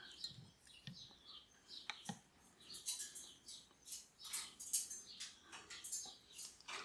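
Cockatiel chick making faint, quick high-pitched begging chirps while being hand-fed from a syringe, a sign of a good feeding reaction. The chirps are sparse at first and come in a rapid run from about three seconds in.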